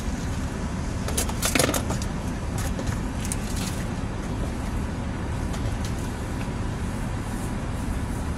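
Steady low rumble inside a minivan's cabin, its engine idling, with a few short clicks and rustles from things being handled in the first four seconds.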